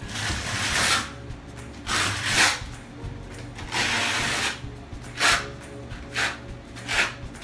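Trowel scraping tile adhesive onto a wall in repeated strokes. The first three strokes last about a second each; shorter, quicker strokes follow near the end.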